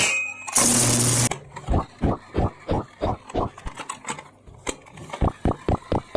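Toy train, plausibly a battery-powered Thomas & Friends engine, running with a steady mechanical clicking about three to four times a second. A short hissing burst comes just before the clicking starts.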